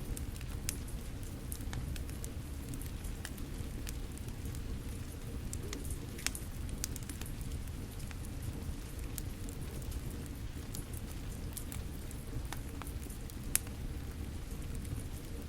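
Steady rain with a crackling fire: a continuous low rush under scattered sharp pops and ticks, two louder pops about six and thirteen and a half seconds in.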